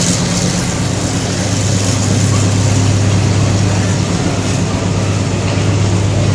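Freight train hauling oil running past: a steady loud rumble over a low, even engine hum.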